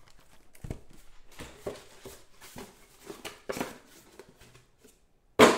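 Trading-card boxes and foil-wrapped packs being handled on a tabletop: scattered light taps, clicks and rustles of cardboard and wrappers. After a brief near-silent gap, a sudden loud burst comes just before the end.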